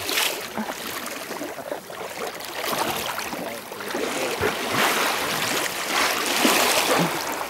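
Water rushing and splashing against a moving sea kayak's hull in choppy water, growing louder in the second half.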